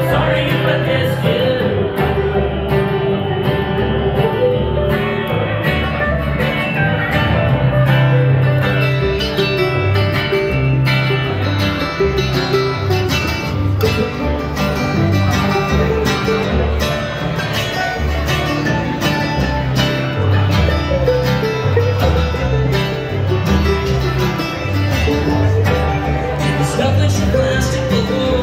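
Acoustic string band playing a country/bluegrass tune: strummed acoustic guitar, mandolin and a plucked upright bass line.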